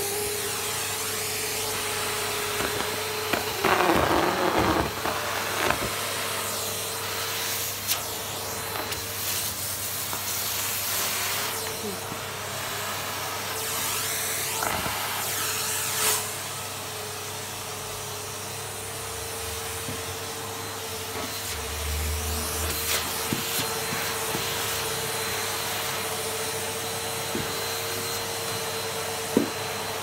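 Numatic Henry cylinder vacuum cleaner running steadily with a constant motor whine and a rush of airflow as its metal wand nozzle is worked over carpet. There are brief louder surges of suction noise, the biggest about four seconds in.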